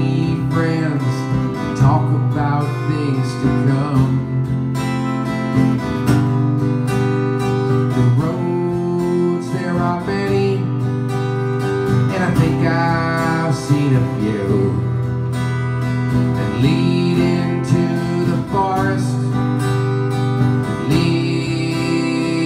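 Steel-string acoustic guitar strummed steadily, playing the chords of a folk-rock song in an instrumental passage between sung lines.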